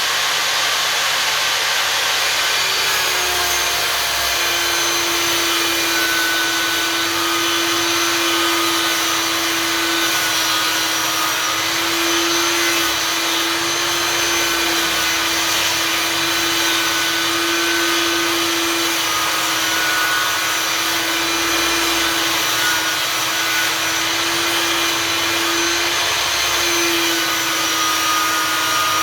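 Einhell table saw running steadily, cutting through a thick board. Its motor hum drops a little in pitch about three seconds in, then holds steady.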